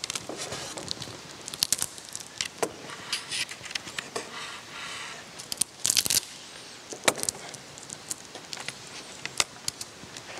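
Irregular clicks and taps of a laptop being typed on and handled at a lectern, with one short, louder rustle about six seconds in.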